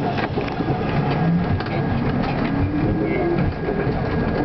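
R42 subway train running on an elevated steel structure, heard from inside the lead car: a steady rumble of wheels on rail with irregular clacks and rattles, and a faint hum that rises slightly in pitch midway.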